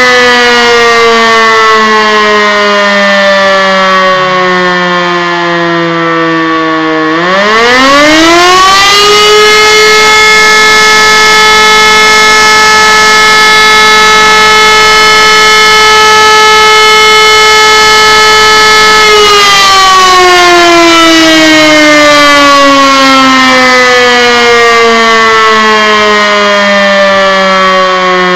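E57 electromechanical motor siren sounding the fire-alarm signal. Its pitch slides down as it coasts, then about seven seconds in it spins back up to a steady, very loud tone held for about ten seconds. The motor is then switched off and the pitch falls slowly again as the rotor winds down.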